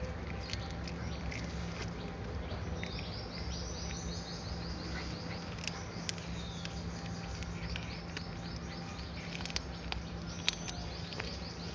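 Kitten chewing chicken right against the microphone, with scattered wet clicks and smacks of its jaws. From about three seconds in, birds chirp in quick repeated series in the background.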